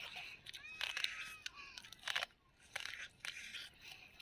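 Close-up crunching and chewing of a mouthful of raw corn kernels bitten from the cob, with crisp crunches about a second in and again around two and three seconds.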